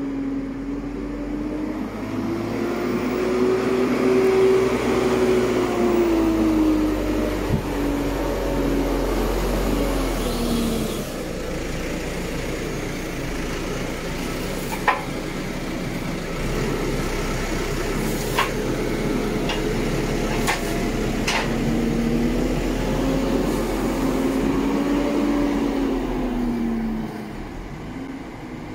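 Tractor engine running under loader work, its speed rising and falling as it moves and lifts round bales, with a few sharp clanks in the middle.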